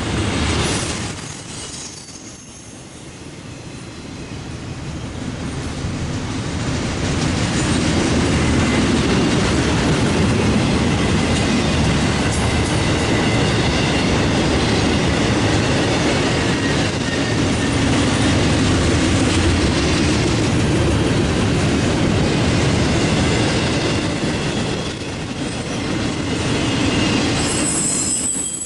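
Intermodal freight train cars loaded with containers and trailers rolling past: a steady rumble of steel wheels on rail with clatter over the rail joints and thin high squeals from the wheels at times. The sound dips about two seconds in, then builds and holds steady from about eight seconds on.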